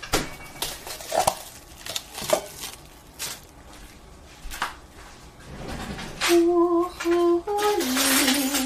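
A few scattered clinks and knocks of kitchenware, then from about six seconds in a person humming a short tune of held, stepping notes, with a short hiss near the end.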